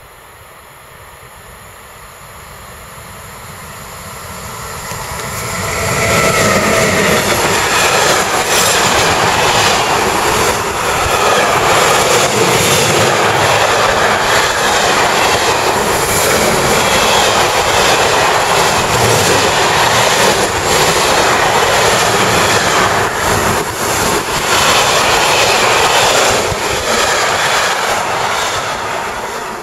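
Container freight train hauled by a DB Class 189 electric locomotive approaching and passing close by at speed. The sound builds over the first six seconds into a loud, steady rush of wheels on rails with rapid clicks as the wagons go by, and begins to fade near the end.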